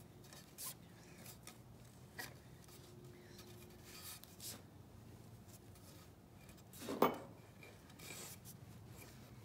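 Faint rubbing and handling sounds of paracord being pulled tight and tied around a wooden handle, with one brief louder knock about seven seconds in.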